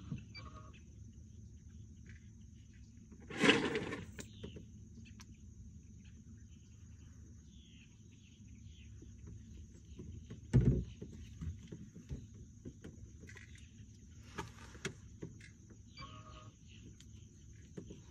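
A faint steady high-pitched whine, with a loud short burst about three and a half seconds in and a heavy thump on a small boat's fiberglass deck about ten and a half seconds in, as something is set down.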